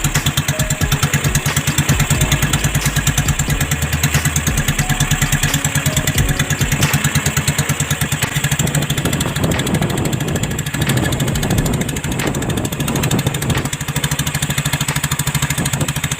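Small engine running steadily at an even speed, with a rapid, regular chugging beat.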